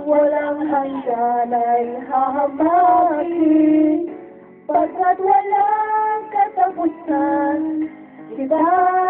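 High voices singing a song in long held notes, with a short break about four seconds in.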